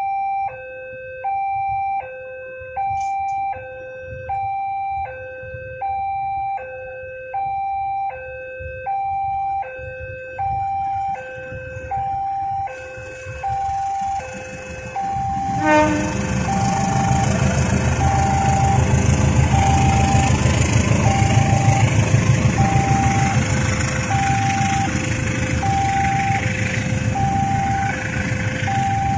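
Level-crossing warning alarm sounding a repeating electronic two-tone chime, about one tone a second. About halfway through, a passenger train arrives and runs past loud with a rumble of wheels on rails, the chime going on over it.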